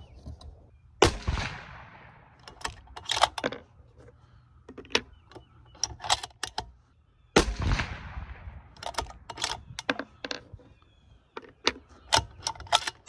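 Two shots from a 6BR bolt-action rifle about six seconds apart, each with a short fading echo. Between and after them come clusters of sharp metallic clicks and clacks as the bolt is worked to eject the case and chamber the next round.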